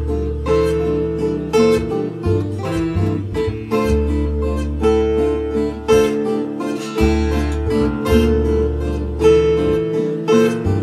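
Background music on acoustic guitar: a steady rhythm of picked and strummed notes over low bass notes that change every couple of seconds.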